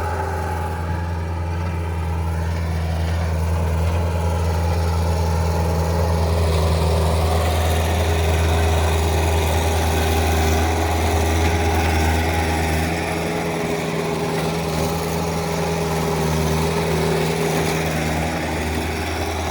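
Bobcat T190 compact track loader's diesel engine running steadily. The lowest part of its hum weakens slightly about two-thirds of the way through.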